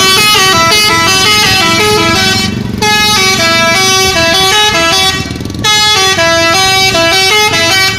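Bus 'telolet' horn, a multi-tone musical air horn, playing a quick melody of stepping notes in three phrases with short breaks between them, stopping near the end.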